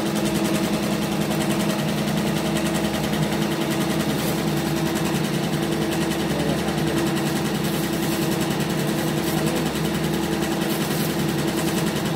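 CNY two-head, 12-needle computerized embroidery machine stitching onto a finished cap held in its cap frame: a rapid, even clatter of needle strokes over a steady motor hum.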